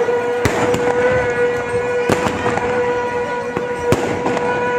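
Sandhya aarti ritual sound: one long steady tone held throughout, over irregular sharp strikes.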